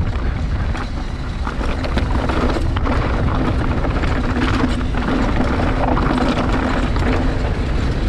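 Downhill mountain bike rolling down a loose dirt and gravel track, with wind rushing over the microphone and the knobby tyres crunching over stones, joined about two seconds in by a steady hum that holds through the rest. Scattered small clicks and rattles from the bike and stones run throughout.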